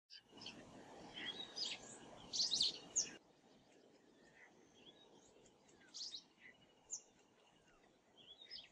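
Songbirds chirping and trilling, a busy run of calls in the first three seconds, then scattered chirps over a quieter background hiss.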